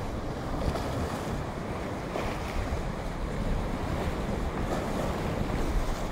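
Small sea waves washing over and splashing against a flat rock ledge at the shoreline, with wind buffeting the microphone.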